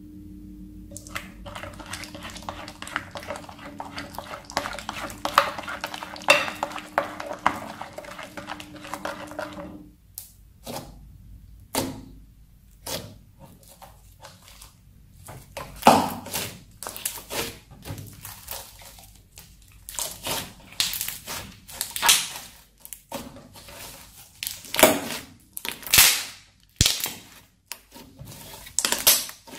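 Glitter-and-sequin slime being worked with a silicone spatula in a glass bowl, making a dense crackle over a low steady hum for about ten seconds. Then, out on a wooden table, fingers poke holes in the slime and fold it, giving separate sharp clicking pops and squelches.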